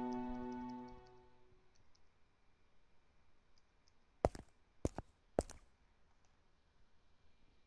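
A held musical note fades away, then after a quiet pause come three sharp clicks about half a second apart.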